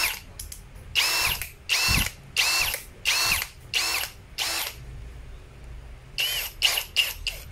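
DCA ADJZ03-13 cordless brushless hammer drill running with no load in short trigger pulls, the motor whining up and winding down with each pull. About six quick bursts come first, then a pause of over a second, then several shorter blips near the end.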